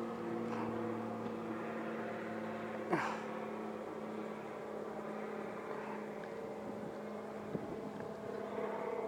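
Steady mechanical hum of a distant motor holding a constant pitch, with one short sharp click about three seconds in.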